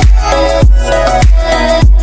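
Background music with a steady kick-drum beat, about five beats every three seconds, over held chords.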